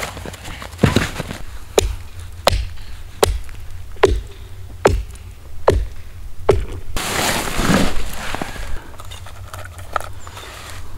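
A steady series of sharp knocks, about one every 0.8 seconds, then a longer rushing scrape about seven seconds in and two fainter knocks near the end.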